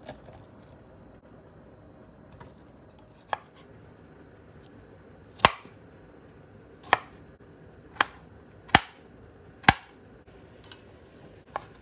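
Kitchen knife chopping strawberries and fresh coconut on a wooden cutting board: about seven separate knife strikes against the board, the first about three seconds in, irregularly spaced a second or so apart.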